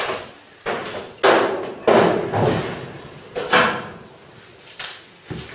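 Metal dashboard frame knocking and clattering against a stripped Ford Cortina Mk3 body shell as it is set in place: several sharp knocks, the loudest between one and two seconds in and another about three and a half seconds in.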